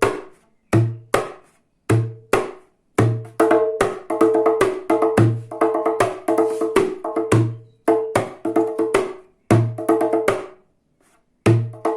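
Small djembe played by hand in a repeating rhythm: deep bass strokes (doum) alternate with sharper, ringing higher strokes (tak), with runs of quick strokes in the middle and near the end.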